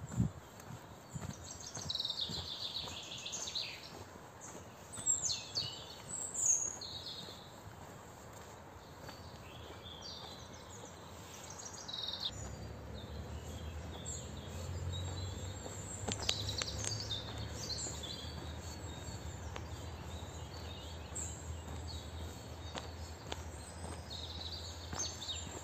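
Songbirds singing and calling, with many short high phrases overlapping, busiest near the start. From about halfway through, a low steady rumble sits underneath.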